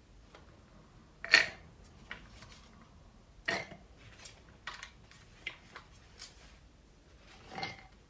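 Peeled garlic cloves dropped by hand into a plastic blender beaker: a handful of separate knocks and clatters, the loudest about a second in and another a couple of seconds later. Near the end comes a softer rattle as the last cloves are tipped in from a paper towel.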